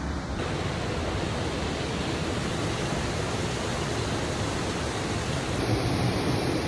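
Aira Force waterfall rushing: a steady, even wash of falling water, a little louder near the end.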